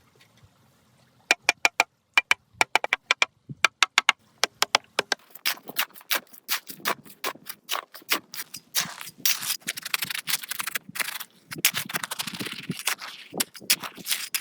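Sharp taps and clicks, at first in quick clusters of three or four with a slight ring, then denser and irregular with scraping.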